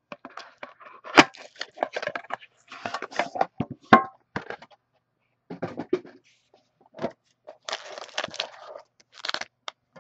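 Unsealing a shrink-wrapped trading-card box by hand: crinkling and tearing of the plastic wrap, with the box and its foil-wrapped pack handled in scattered clicks and knocks. The two sharpest knocks come about a second in and about four seconds in.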